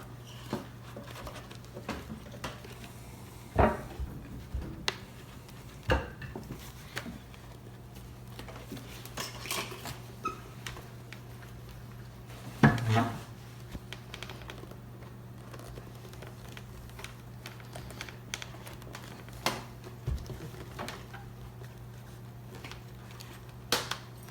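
Scattered clicks, taps and knocks of hard plastic parts of a helmet Bluetooth kit being handled and pressed into place in a motorcycle helmet, with two louder knocks, about 4 and 13 seconds in.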